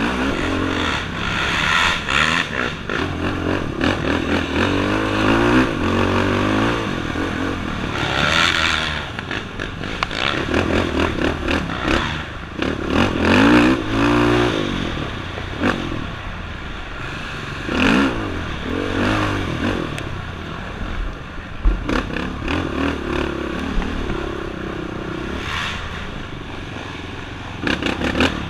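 Off-road racing motorcycle engine revving up and down repeatedly as the rider works the throttle along a rough woods trail, with knocks and rattles from the bike bouncing over the ground.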